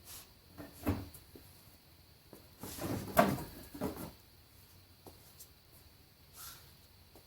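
Scattered knocks and clatter of hand work on a car's plastic bumper and its fasteners, with a busy run of clunks around three seconds in.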